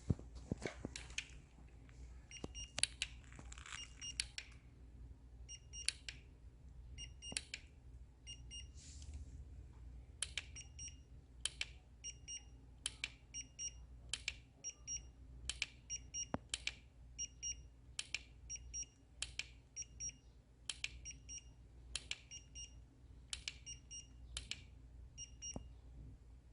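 Short, high electronic beeps repeating about once a second, mixed with sharp clicks.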